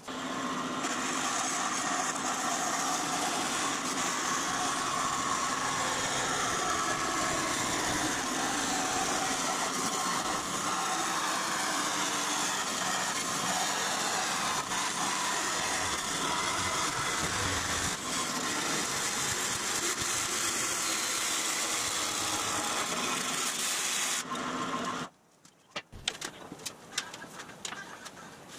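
Vertical band saw running steadily as it cuts through thin aluminum sheet, stopping abruptly about 24 seconds in. After a brief pause come light clicks and clattering as the aluminum panel is handled.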